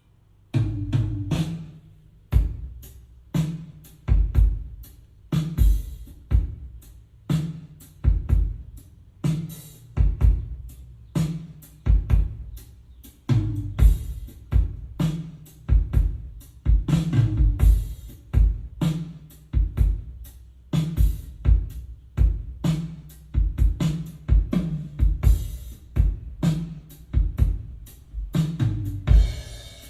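Recorded drum kit groove, kick, snare and hi-hat in a steady rhythm with a low bass line, played back through a Yamaha YSP-2700 sound bar; it starts about half a second in.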